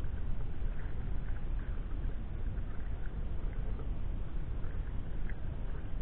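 Sea kayak paddling: small water splashes and drips over a steady low rumble of wind on the microphone.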